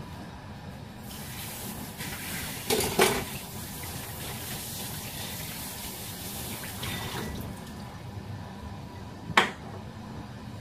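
Water running from a kitchen tap into the sink, starting about a second in and stopping after about seven seconds. A short clatter about three seconds in and a single sharp knock near the end.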